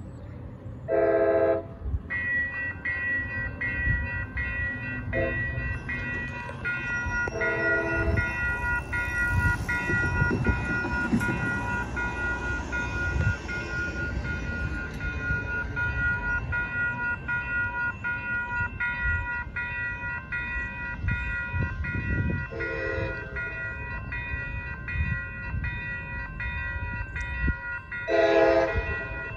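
Railroad crossing warning bell ringing in a steady, even rhythm. An approaching train's horn sounds short blasts over it several times, loudest about a second in and near the end.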